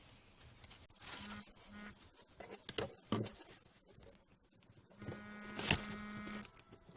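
Plastic clicks and rustling from handling a car's cabin air filter and its housing, the loudest a sharp snap a little before the end. An intermittent buzzing hum comes and goes, briefly early on and for about a second and a half near the end.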